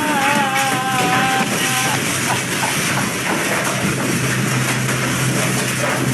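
Excavator running with a steady low engine hum under a dense, noisy din of demolition, with a wavering pitched sound, like a raised voice, in the first two seconds.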